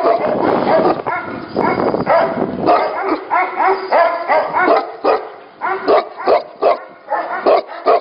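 Several Tibetan mastiffs barking, the barks overlapping densely at first, then coming as separate barks about two or three a second in the last few seconds.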